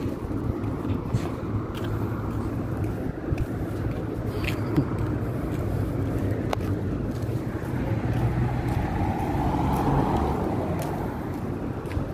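Dust-storm wind buffeting the microphone with a steady low rumble. Late on, a car's engine and tyre noise swells as it drives closer.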